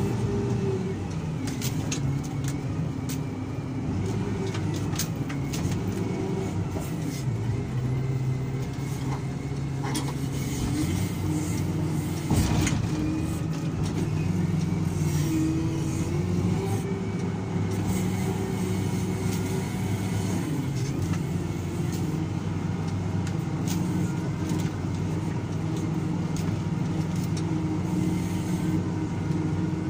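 SDLG wheel loader's diesel engine running, heard from the cab, its pitch dipping and rising a few times as the machine works. A single sharp knock about twelve seconds in.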